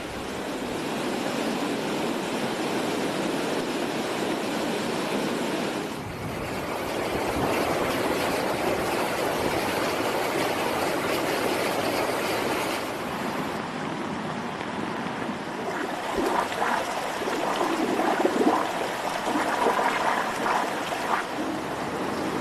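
Floodwater rushing fast along a street, with heavy rain falling on it: a steady, dense noise of running water that shifts abruptly in level a couple of times.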